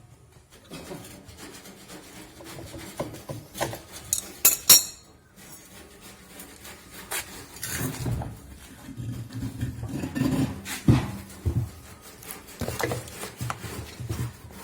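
Metal tools and washing-machine parts clinking and knocking as they are handled during reassembly, with a sharp metallic strike about four and a half seconds in and heavier, denser knocking in the second half.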